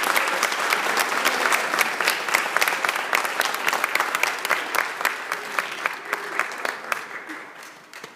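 Audience applauding, with one person's claps loud and close by; the applause fades and dies away near the end.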